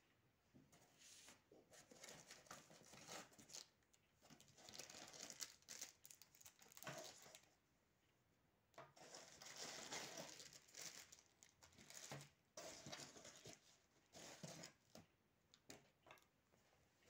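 Faint crinkling and rustling of plastic accessory bags and packaging as they are handled and pulled from a foam box insert, in irregular bursts with a short pause about halfway.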